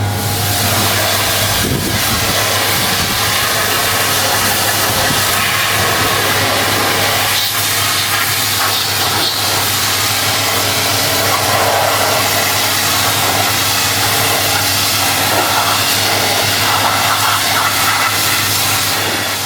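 Garden pressure washer running, a steady motor hum under the loud, continuous hiss of its water jet spraying dirt off the car.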